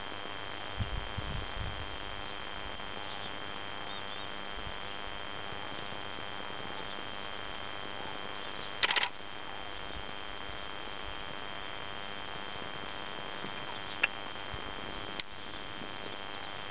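Recording noise of a digiscoping video camera: a steady hiss with a constant high whine, a few low handling bumps about a second in, a short loud crackle near the middle, and two sharp clicks near the end.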